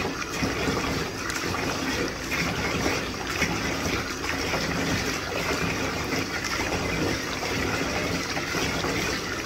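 Water running steadily from a bathtub faucet into the tub.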